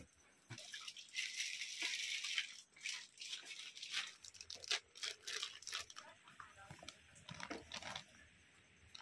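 Plastic flour packets rustling and crinkling as they are pulled from a bag and opened by hand, a run of irregular short crackles that is densest about a second or two in.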